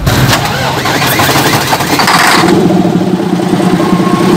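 An engine starting with a loud, noisy burst, then settling into a steady running note about halfway through.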